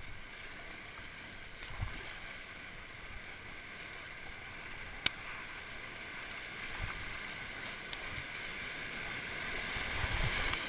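Rushing whitewater of a river rapid heard from an inflatable kayak, growing louder near the end as the boat drops into the bigger waves, with a few dull thumps and one sharp click about five seconds in.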